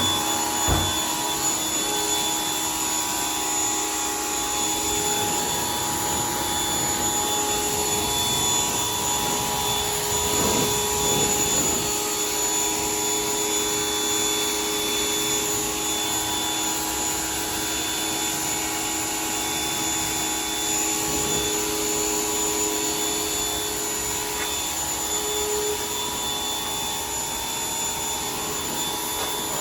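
Vacuum cleaner motor running steadily with a constant whine.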